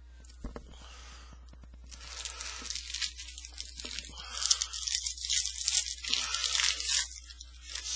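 A trading-card pack wrapper being torn open and crinkled, starting about two seconds in and going on in irregular crackling bursts until near the end. A single click comes about half a second in.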